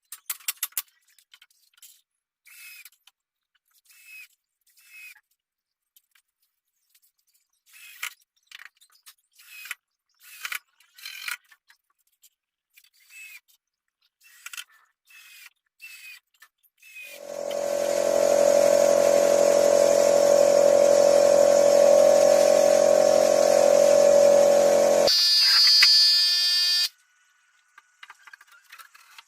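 Light scattered knocks and clicks of work on cabinet panels, then a handheld power tool's motor runs loudly and steadily for about eight seconds, changes pitch and cuts off suddenly.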